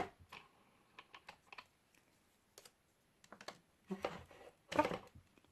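Light plastic clicks and knocks from handling a drone's propeller as it is twisted off its motor. There are scattered small clicks, with two louder bursts of handling noise near the end.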